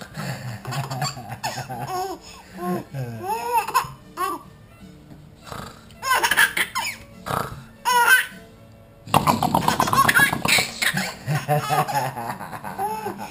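Baby laughing in repeated bursts of giggles and high, gliding squeals, with short pauses in between. The laughter is loudest in a long run that begins about two-thirds of the way in.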